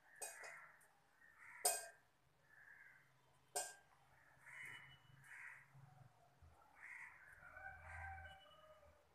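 Quiet hand-mixing of crumbly flour-and-egg dough in an aluminium pot, with two sharp clicks about two seconds apart and faint, repeated bird calls in the background.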